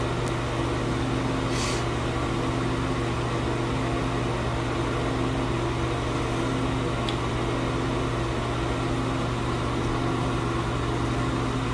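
Steady hum of a fan motor running, with a few low steady tones in it.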